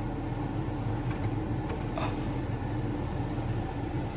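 Nissan Sunny idling with the air conditioning on and its cleaned blower fan running in a steady, even hum, free of the vibration noise that dirt on the fan had caused. A few faint clicks over it.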